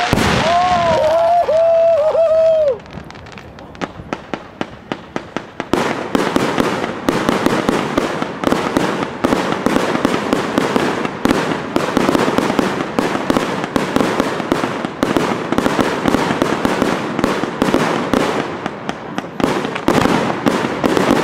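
Fireworks display: wavering whistles in the first couple of seconds, then after a short lull a dense, rapid crackling and popping of shells bursting overhead from about six seconds in.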